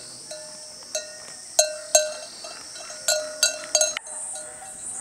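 Small metal bells clanking irregularly, about seven strikes, each leaving a short ringing tone, over a steady high hiss.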